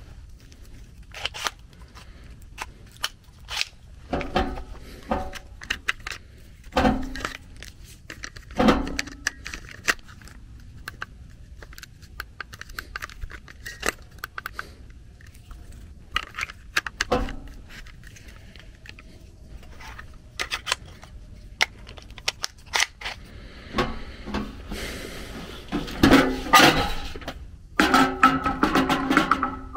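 Scattered metallic clinks, knocks and scrapes of hand tools against the sheet-metal blower housing while a stuck blower wheel is worked loose from the motor shaft. Music comes in near the end.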